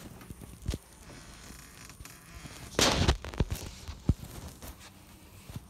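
A few sharp knocks and clicks, with a loud, brief rush of noise about three seconds in.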